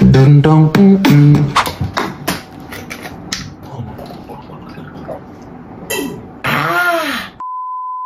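Edited-in comic sound effects: a deep buzzing drone for the first second and a half, then quieter handling sounds with a few clicks. Near the end a short warbling sound rises and falls, and a steady bleep tone is held for just under a second.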